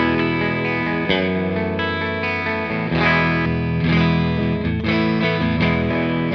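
Fender Hybrid II Jazzmaster electric guitar played through the Silver Llama amp-sim plugin, giving a vintage combo amp sound. Chords and notes ring out with a fresh attack about once a second.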